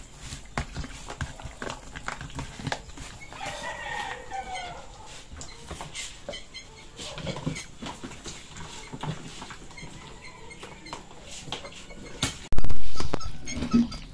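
A hand squishes and rubs seasoning into raw chicken pieces in a plastic tub, making soft wet squelches and small clicks. A chicken calls briefly about four seconds in, and a loud knock close to the microphone comes near the end.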